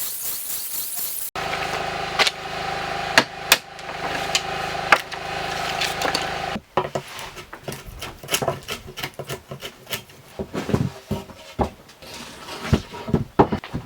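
Woodworking workshop sounds in cut-together clips: a steady machine hum with a few sharp knocks, then about seven seconds of irregular tapping and knocking on wood, like hammering or hand-tool work.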